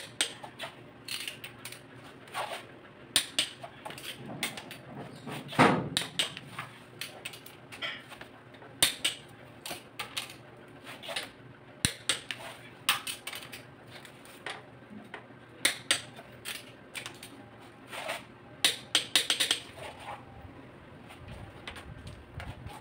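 Sharp metallic clicks and clinks from a long torque wrench and its socket working the cylinder head bolts of a Mitsubishi 4D34 diesel engine. They come irregularly, with a quick run of clicks late on, as the head bolts are torqued down.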